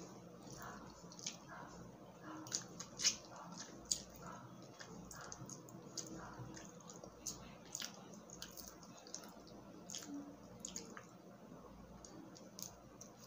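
Close-miked eating sounds of a person eating butter garlic shrimp by hand: wet chewing, lip and finger smacks, and scattered small clicks and crackles as a shrimp's shell is peeled off with the fingers.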